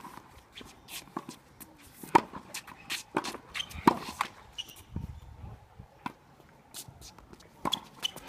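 Tennis rally on a hard court: sharp pops of the ball on racket strings and on the court surface, the loudest about two and four seconds in, with the near player's shoes shuffling and scuffing between shots.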